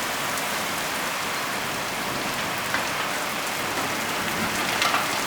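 Heavy thunderstorm rain falling steadily, with a few sharper drops splashing near the end.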